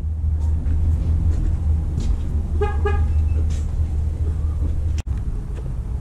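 A car horn gives two quick toots about halfway through, over the steady low rumble of a running vehicle engine.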